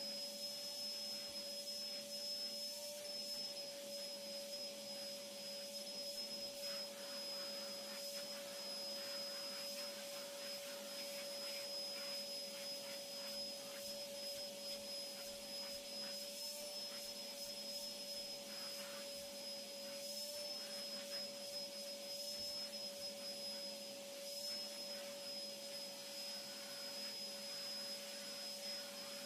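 Vacuum cleaner running steadily, its motor giving a constant whine over a rushing noise, with a few faint knocks and rubs along the way.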